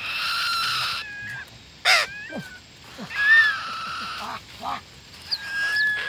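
Young hawks and a parrot calling: long harsh screeches in the first second and again about three seconds in, with thin whistled notes between and near the end. A single sharp snap sounds about two seconds in.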